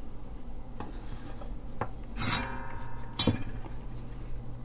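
Handling noise as an amplifier circuit board on its metal front panel is moved and set down on a wooden workbench: light clicks, a scraping rub with a short metallic ring about two seconds in, then a sharp knock about a second later. A low steady hum sits underneath.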